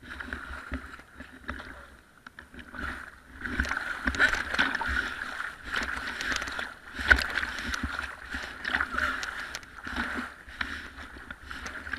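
Fast river rapids rushing and splashing right at the camera, with irregular louder surges and slaps of water against it.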